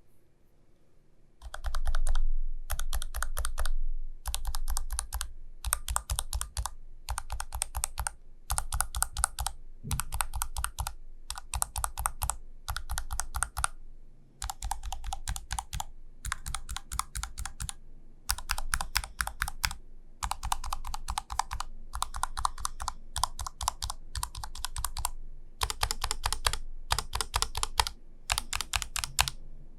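Typing on an ASUS ROG Falchion RX Low Profile keyboard with low-profile optical mechanical switches: fast runs of keystrokes, each run about a second long with short pauses between, starting after about a second and a half of quiet.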